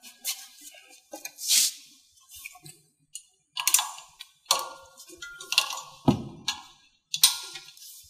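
Foot cable and its metal fittings being handled and fed along a carpet-cutting machine's stand: a string of short metallic rattles and clinks, with a dull knock about six seconds in.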